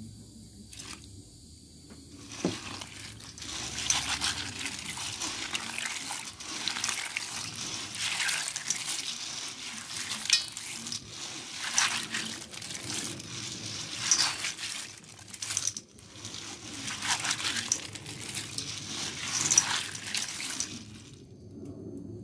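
Hands scrubbing and swishing black beans in water in a metal bowl, a wet sloshing in repeated surges about every two seconds. It starts about two seconds in and stops just before the end.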